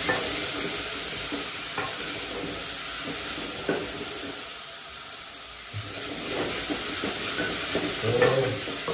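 Onions and tomatoes sizzling as they fry in a pot, stirred with a spoon, with a few short scrapes against the pot.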